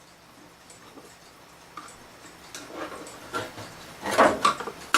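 Handling noise from small clock parts: quiet at first, then scattered light clicks and knocks from about halfway, the loudest near the end.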